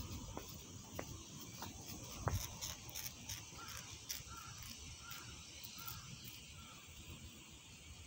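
Steady faint drone of cicadas with wind rumbling on the microphone. A few footsteps on asphalt are heard in the first half, and in the middle a bird gives about five short calls in a row.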